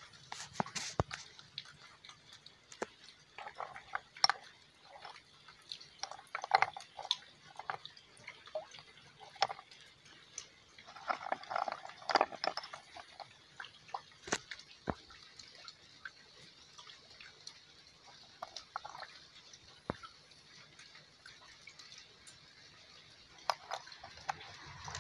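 Heavily rusted WWII-era rifle cartridges clicking and knocking against one another and the wooden board as a hand picks through the pile. The knocks are irregular, busiest a few seconds in and around the middle, and thin out in the second half.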